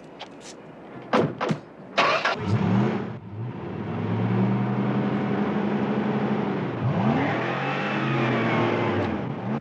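A few car-door clunks, then a 1958 Edsel convertible's V8 starts, runs steadily as the car backs out, and revs up about seven seconds in as it pulls away.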